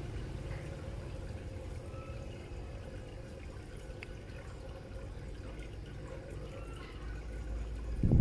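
Steady low hum with a faint hiss above it, rising a little near the end.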